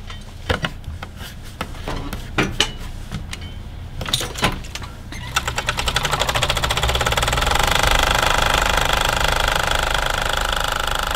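Overlock serger starting up about five seconds in and running at speed with a fast, even stitching rhythm as it trims and overcasts the raw edge of a fabric sleeve. Before it starts there are a few scattered sharp clicks and knocks.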